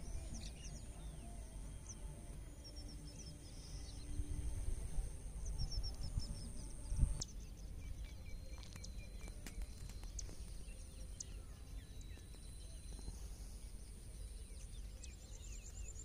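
Outdoor ambience of small birds chirping in short high calls, with a fast high trill near the end, over a low rumble. A single knock about seven seconds in.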